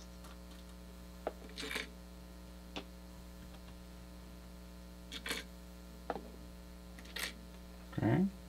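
Steady electrical hum, with a few faint light clicks and short rustles as small mounting parts (standoff posts and springs for a CPU block) are handled.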